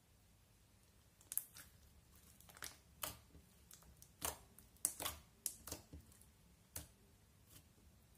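Clear blue glitter slime pressed and kneaded with the fingertips on a glass plate, making a run of about a dozen sharp, sticky clicks and pops at uneven intervals, starting about a second in.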